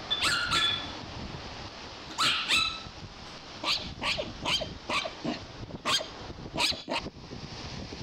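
Small chihuahua barking: a run of short, high-pitched yaps, two at first and then a quicker series of about eight, over a steady hiss of wind and surf.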